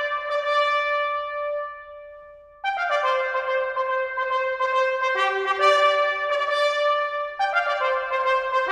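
Trumpets playing together in harmony. A held note fades away about two seconds in, then the brass comes back in suddenly with full chords that move on from note to note.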